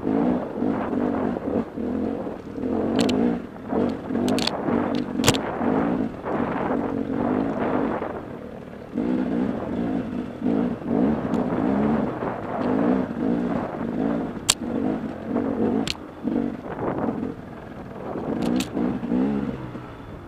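Enduro dirt bike engine revving in short bursts, the throttle opened and closed over and over while climbing a rough trail, with several sharp knocks from the bike or its wheels striking the ground.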